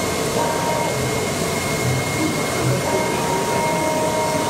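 AOKE DCH-series CNC cardboard cutter cutting 2 mm E-flute corrugated sheet. A steady rush of air from the vacuum hold-down bed and a steady high tone run under a drive-motor whine. The whine comes in briefly about half a second in and again from about three seconds in, as the cutting head makes its moves.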